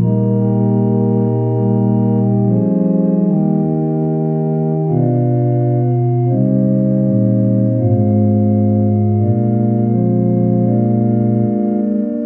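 Organ playing slow, sustained chords over a held bass line, the chords changing every second or two.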